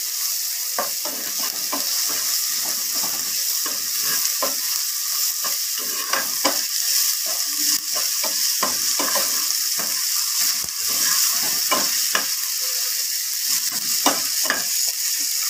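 Sliced onions and green chillies sizzling in hot oil in a non-stick pan, with a steady high hiss. A spatula scrapes and knocks against the pan many times at an irregular pace as they are stirred. This is the onion base, with a little ginger paste, being fried until golden and the ginger's raw smell cooks off.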